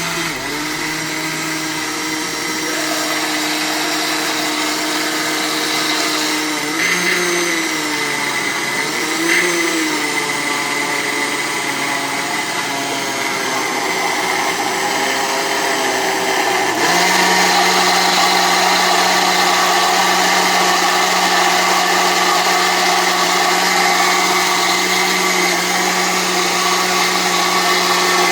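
Cadence Evolution 800 W blender motor running, mixing pizza batter. Its pitch wavers and dips briefly about seven to ten seconds in as the load shifts, then it gets louder about seventeen seconds in.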